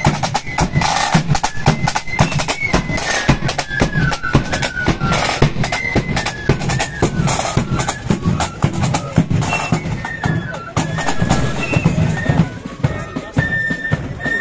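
Marching flute band playing a march: flutes carry a tune over rapid side-drum strokes and a bass drum beat.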